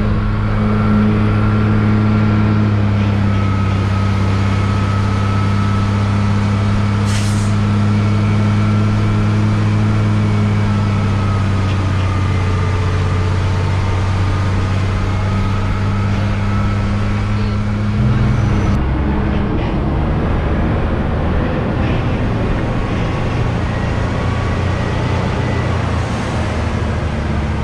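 Hino 500 truck's diesel engine running steadily on the road, with a brief hiss of air about seven seconds in. The engine note changes about eighteen seconds in.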